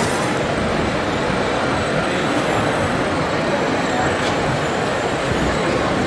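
Radio-controlled model tipper truck driving, its running sound mixed into a steady background din with murmuring voices.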